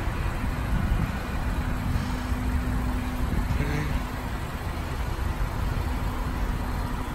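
Steady motor-vehicle rumble with a constant low hum running under it.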